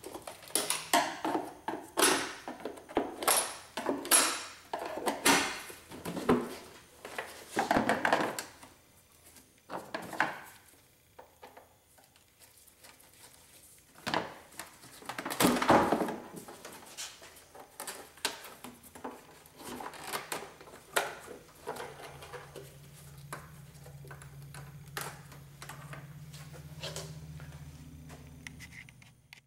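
Clicks, knocks and clattering of plastic parts and a screwdriver as the air filter housing on a BMW M62 V8 is unclipped and its lid taken off. The loudest clatter comes about halfway through, and a steady low hum sets in about two-thirds of the way through.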